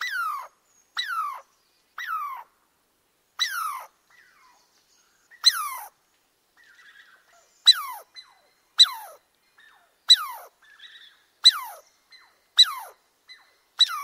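Squirrel calling: a series of about eleven calls, each sliding down in pitch over about half a second from a sharp start, roughly one every second or so, with faint small chirps between calls in the second half.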